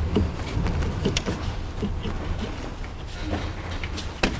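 Light metal clicks and knocks of a brake caliper being worked onto its bracket over new pads, with a sharp knock near the end, over a steady low hum. The caliper will not seat because one of its slide pins is frozen.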